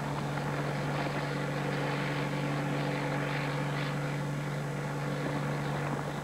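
Single-engine light plane in flight: the engine and propeller drone steadily over a hiss of rushing air.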